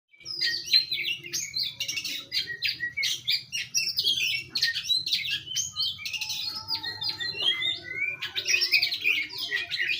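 A songbird, called a 'sekoci' by its keeper, singing a fast, jumbled run of chirps and twitters that goes on with hardly a break.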